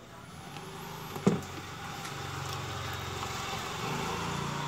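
A steady low engine-like hum, with a single sharp click about a second in and a hiss that builds over the last couple of seconds.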